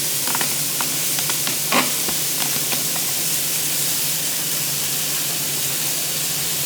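Chopped vegetables (onions, garlic, capsicum, carrots and tomatoes) sautéing in butter and oil in a hot pan, sizzling with a steady hiss. A few short pops and crackles come in the first few seconds.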